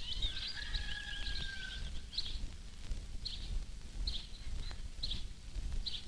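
Small birds chirping and twittering: a quick flurry of high calls in the first two seconds, with one long steady whistled note through it, then scattered single chirps. A low rumble of old film-soundtrack noise runs underneath.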